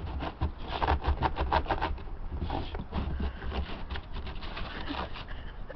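A springer spaniel's paws crunching through snow as it bounds about: a quick run of crunches about a second in, then looser, scattered crunches.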